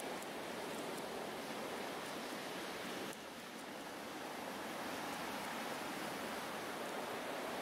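Sea surf washing on a pebble beach: a steady rushing wash that drops suddenly about three seconds in, then swells back up.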